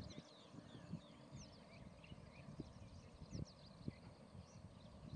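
Faint chorus of small birds chirping, many short quick chirps overlapping, with scattered soft low thumps.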